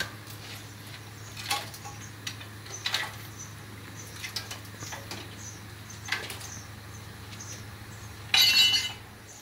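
Scattered metal clinks and knocks as a 7.3L gas V8 is hoisted out of a truck's engine bay on a shop crane, over a steady low hum. A louder, ringing metal scrape comes about eight seconds in.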